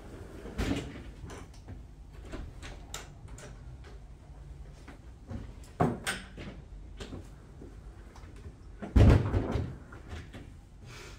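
Scattered knocks and thumps, like things being handled or a door or cupboard being moved, with a heavier thud about nine seconds in.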